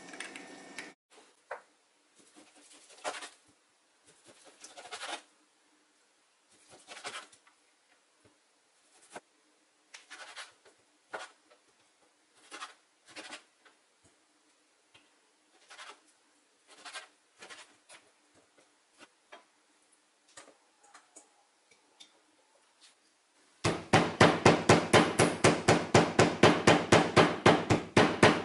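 Knife cutting raw pork on a plastic cutting board, with scattered taps and scrapes. Near the end comes a long, fast run of loud, even blows as a meat mallet pounds the pork pieces.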